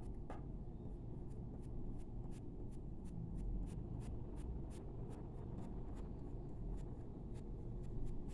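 Coloured pencil scratching on paper in short, quick strokes, about three a second, as fine fur hairs are drawn.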